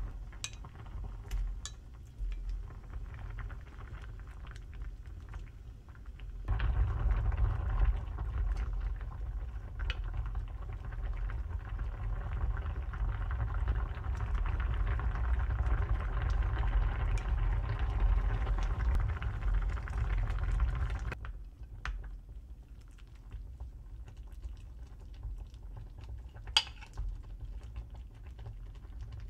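Doenjang-jjigae (Korean soybean-paste stew) bubbling at a boil in an open pot on the stove, much louder through the middle stretch. A few light clinks near the start, and one sharp clink near the end.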